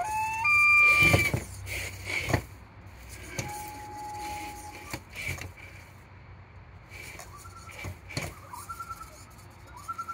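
Small electric motor of a radio-controlled robot chassis whining as it drives off, rising in pitch at the start and then holding steady for about a second. A second, lower steady whine comes in the middle, with short rising whines and clicks and knocks throughout.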